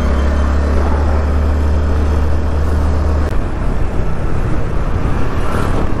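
A road vehicle driving, heard from on board: a steady low rumble under broad road noise, which turns rougher and less steady a little over three seconds in.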